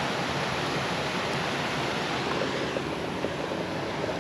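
Steady rush of water from a small waterfall spilling over rocks into a river pool, dulling a little after about three seconds.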